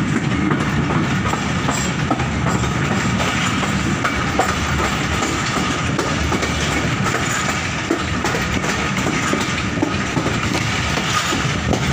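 Passenger train running slowly, its wheels on the rails heard through an open carriage doorway: a steady running noise with a few faint knocks.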